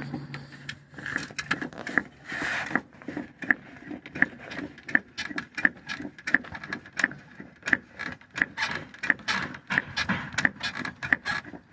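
Toyota Sienna shock absorber top mount ticking as the body is rocked by hand: a series of small ticks, about two a second, with some rubbing between them. It is the sign of a worn bushing under the shock's top bolt.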